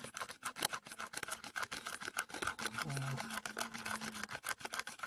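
Steel spoon beating instant coffee, sugar and hot water in a glazed bowl, clinking against the bowl in a rapid, fairly even run of several strikes a second. It is the sound of dalgona coffee being whipped by hand.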